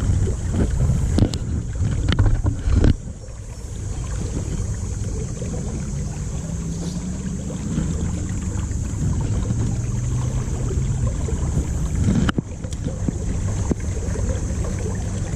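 River water moving and splashing around a wading angler, with a steady low rumble, likely partly wind on the microphone, and a few sharp knocks in the first three seconds and once more about twelve seconds in.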